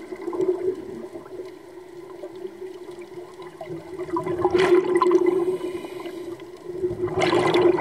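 A scuba diver's exhaled air bubbling and gurgling underwater, with two louder gushes of bubbles about four and a half and seven seconds in.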